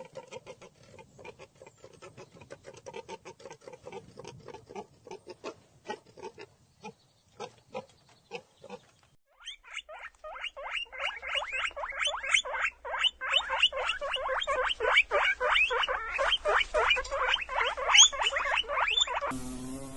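Animal calls: first a run of quick, short clicking grunts, then from about halfway a fast series of short, high squeaky calls, several a second.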